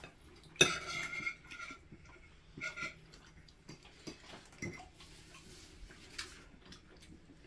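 Forks and spoons clinking and scraping on ceramic plates while eating: scattered light clinks, the sharpest about half a second in.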